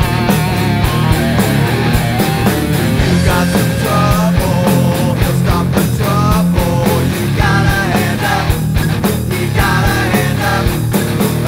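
Studio recording of a hard rock song: electric guitars, bass and drums playing at full band volume with a steady beat, and a pitched lead line bending over it.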